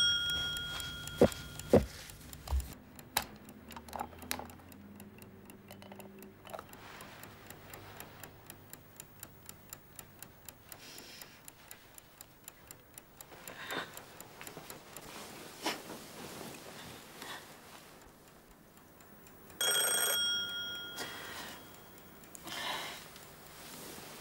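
A small bell alarm clock's ring cuts off about a second and a half in, then a few clicks. The clock ticks about twice a second, and a bell rings again for about a second and a half near the end.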